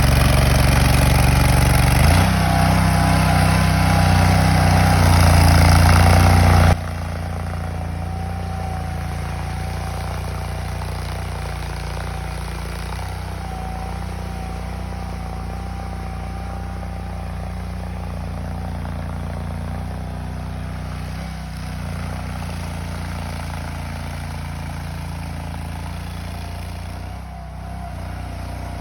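Chain trencher's engine running steadily, loud for about the first seven seconds, then dropping suddenly to a lower level and running on evenly.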